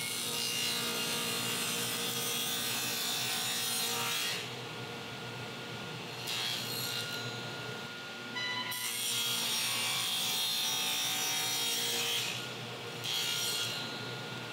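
Table saw with a stacked dado blade set cutting a dado across a wooden board. There are two long cutting passes, one at the start and one in the middle lasting about three to four seconds, with shorter bursts of cutting noise between and after them.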